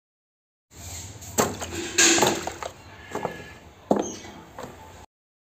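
Shoes and sandals knocking about in a plastic tub of water, with splashing and several sharp knocks, loudest about two seconds in; it starts after a brief silence and cuts off just before the end.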